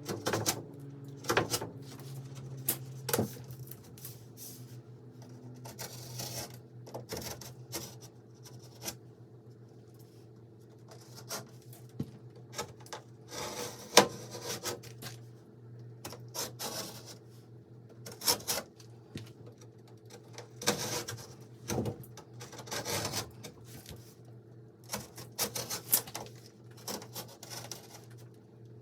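Irregular scraping and rubbing strokes with a few sharp knocks, over a steady low hum.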